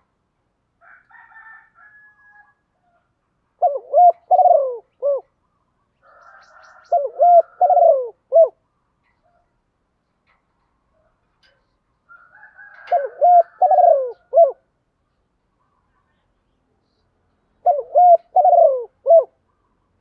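Spotted dove (cu gáy) singing its cooing song: four phrases, each a quick run of several low coos, repeated every four to five seconds. Fainter higher sounds come just before some phrases.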